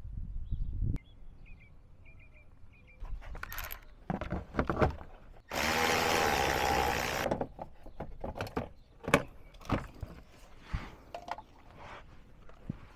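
Clicks, taps and rattles of hand tools and plastic trim being worked. About halfway through, a cordless power tool runs steadily for about two seconds; this is the loudest sound.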